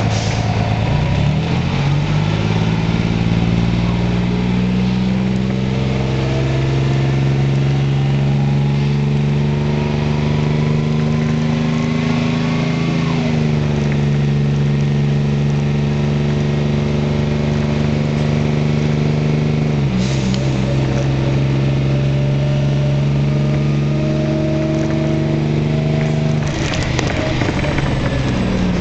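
Diesel engine of a New Flyer D40HF transit bus, heard from on board as the bus pulls away. The pitch climbs steadily with a fainter higher whine rising alongside it, drops sharply at a gear change about 13 seconds in, holds steady while the bus cruises, then falls away as the bus slows near the end.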